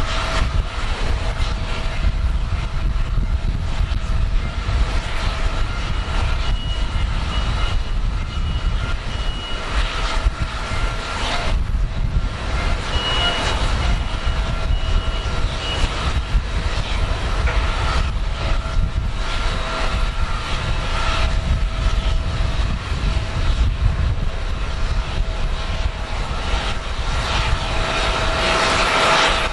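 Steady jet whine over a low rumble, the running noise of aircraft on an airport apron. Twice, a run of short high beeps from ground-service equipment sounds over it.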